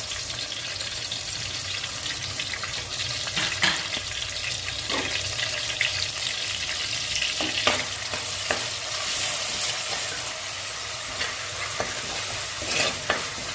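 Pounded onion, garlic and curry leaves sizzling steadily in hot oil, with a spatula stirring and now and then clicking against the pan.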